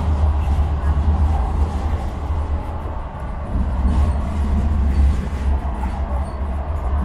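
Sheffield Supertram tram running along its track, heard from inside the passenger car: a steady low rumble of wheels on rail and running gear.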